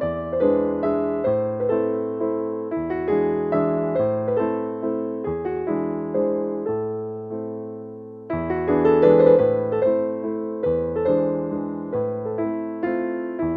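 Background piano music: a run of struck notes and chords, with a short softer stretch a little past the middle.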